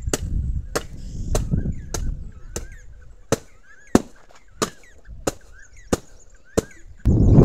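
A stick beating dried green gram (mung bean) pods to thresh out the grains, a sharp crack about three times every two seconds. Birds chirp faintly between the strikes, and a louder rustling noise starts near the end.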